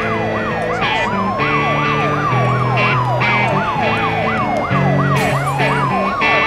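Two sirens sound together: one yelps rapidly up and down about three times a second, while the other wails in a long slow rise and fall that climbs again near the end. Underneath, the punk rock band keeps playing, with bass notes and drum and cymbal hits.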